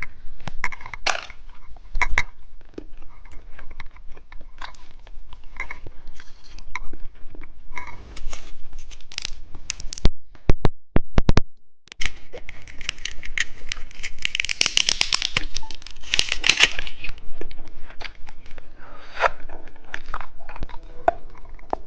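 Plastic candy wrapper crinkling and being torn open, with scattered taps and scratches; the crinkling is loudest in a stretch past the middle.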